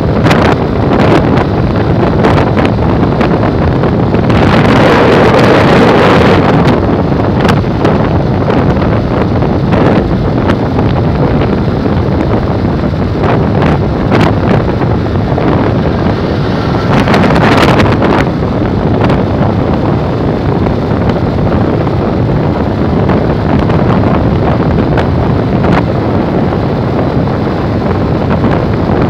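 Heavy wind buffeting the microphone of a motorcycle riding at highway speed, with the bike's running and road noise beneath it. The wind swells louder about four seconds in and again around the middle.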